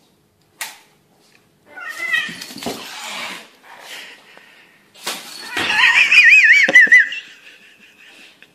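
A cat hissing and letting out wavering, warbling yowls. The loudest and longest yowl comes about five to seven seconds in.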